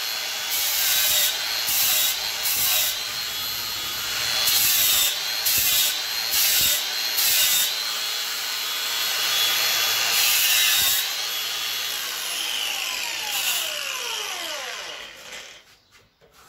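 Makita cordless angle grinder with an 80-grit sanding disc running and sanding an ash bowl blank, the disc scraping against the wood in repeated surges over a steady motor whine. About twelve seconds in the trigger is released and the motor winds down to a stop.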